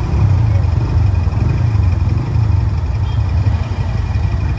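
Motorcycle running steadily on the move, its engine and road noise heard from the rider's seat as an even, deep rumble.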